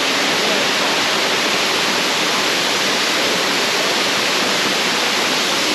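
Waterfall rushing, a loud, steady, even rush of falling water.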